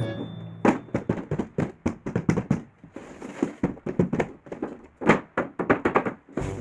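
Irregular sharp clicks, taps and knocks of hard plastic being handled, several a second, with one louder knock about five seconds in.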